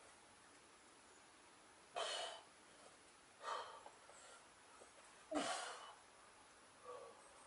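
Three short, forceful breaths, about two, three and a half and five and a half seconds in, the last the loudest.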